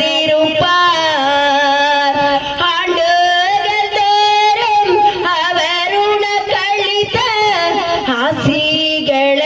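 A woman singing a Tamil song into a handheld microphone, holding long notes that bend and glide in pitch.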